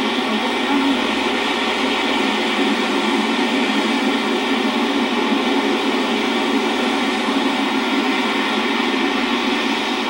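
Steady rushing noise at an even level, with no distinct events.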